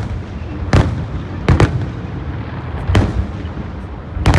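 Fireworks display: aerial shells exploding in sharp bangs about once a second, two of them close together near the middle. Each bang trails off in echo over a continuous rumble.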